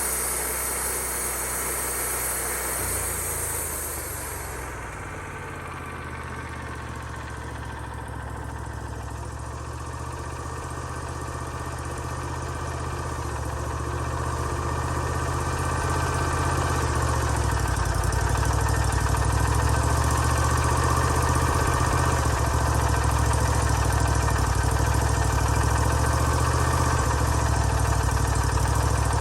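Engine of a portable band sawmill running steadily while the mill saws boards in pattern mode, getting louder over the first half and then holding even. A hiss high in the range fades out about four seconds in.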